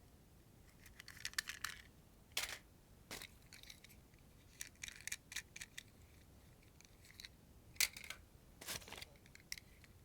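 Hands handling diecast toy cars and their plastic and card packaging: a run of small, uneven clicks, scrapes and crinkles, with a sharper click about eight seconds in.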